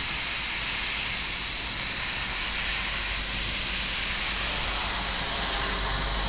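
A steady, even hiss with no distinct events in it.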